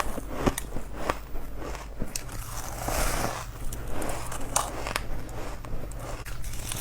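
Chunks of powdery ice being bitten and crunched between the teeth: repeated sharp cracks and grainy crunches.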